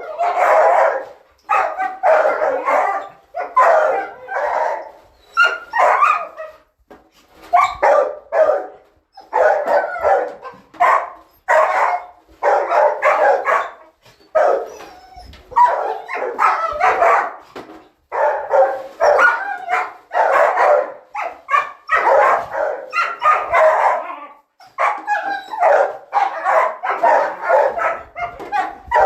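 A dog barking and yipping in quick runs of short calls, separated by brief pauses.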